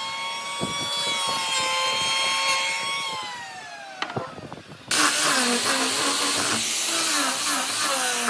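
Electric power tool motor running with a steady whine, then slowing and winding down about three seconds in; about five seconds in a loud, hissing machine noise starts abruptly and continues.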